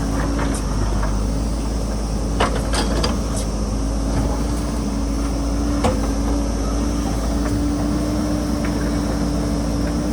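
A JCB backhoe loader's diesel engine runs steadily with a deep rumble. A few sharp knocks come through, the clearest about two and a half seconds in and again near six seconds.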